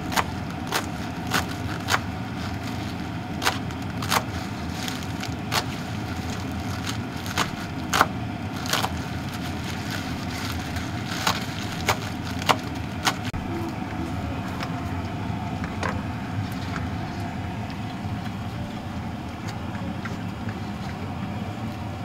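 Kitchen knife chopping fresh herbs on a plastic cutting board: sharp, uneven taps every half second to a second and a half, thinning out after about 13 seconds. A steady low rumble runs underneath.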